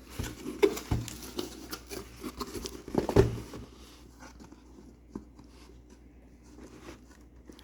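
Handling of a cardboard shipping case and the blister-carded toy cars inside it: irregular knocks, taps and rustling, with the loudest knocks about one and three seconds in, then lighter handling.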